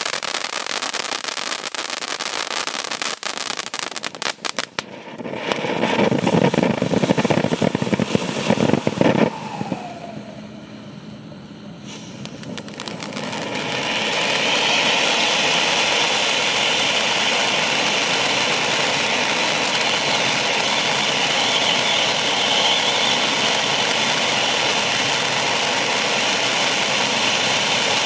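Wolff 6405 Familie Juweel compound of firework fountains burning. It crackles for the first few seconds, rises to a louder, deeper rush for about four seconds, dips, and from about 14 s one fountain sprays sparks with a steady hiss.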